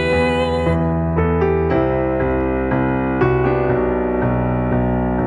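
Nord Piano 2 digital stage piano playing a slow instrumental passage of chords. A woman's held sung note ends about a second in, leaving the piano alone.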